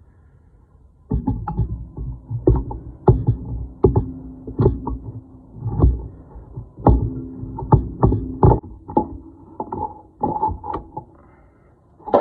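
Irregular metal knocks and clunks, about one or two a second, as disc brake parts are fitted onto a pickup's front spindle, some strikes briefly ringing. They begin about a second in and die away near the end.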